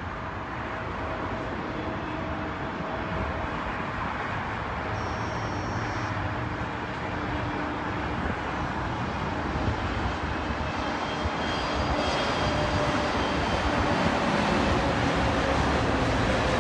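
Airbus A320 airliner's jet engines on final approach: a steady rushing jet noise that grows gradually louder as the aircraft nears.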